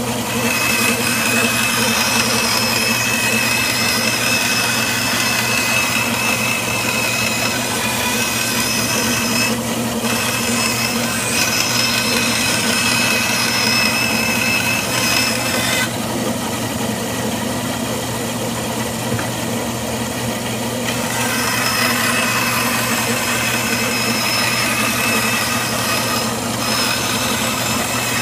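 Bandsaw running with a steady hum and a thin high whine from the blade, cutting thin scrap MDF. The higher hiss fades out for several seconds past the middle, then comes back.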